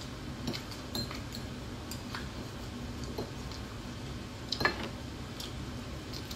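Spoons and forks clinking and scraping against bowls while eating: a handful of separate short clinks, the loudest about four and a half seconds in.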